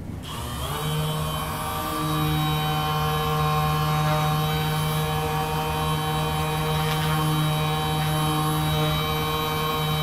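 Handheld percussion massage gun switched on, its motor rising in pitch over the first second, then running with a steady drone while pressed against the patient's upper back.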